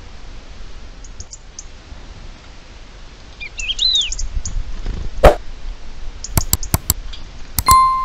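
Wild birds calling outdoors: faint short chirps, then a brief arched call. In the second half come several loud sharp knocks and clicks, the loudest a little past the middle. Near the end a bell-like ding rings for about a second, as the subscribe-button animation's sound effect.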